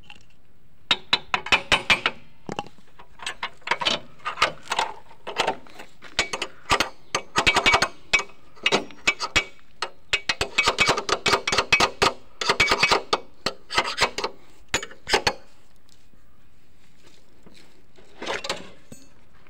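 Motorcycle rear wheel axle being knocked out of the hub: runs of quick sharp taps and knocks, several a second, that stop after about fifteen seconds, with one short run near the end.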